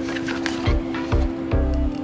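Background music with a steady beat under held chords that change about three-quarters of the way in.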